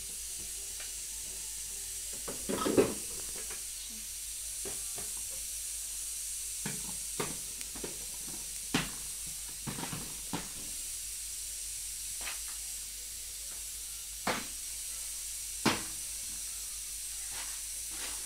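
Plastic storage jars being picked up, moved and set down on a kitchen shelf: scattered clicks and knocks at irregular intervals, the loudest cluster about three seconds in, over a steady hiss.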